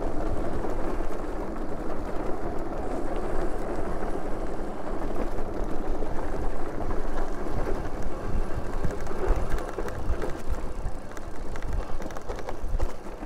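Super73 electric bike ridden over a bumpy, cracked dirt trail: continuous rumble of the tyres on the dirt with the bike rattling over the bumps.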